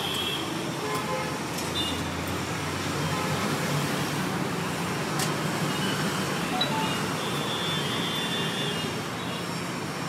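Steady roadside traffic noise from passing vehicles, with a couple of brief sharp clicks.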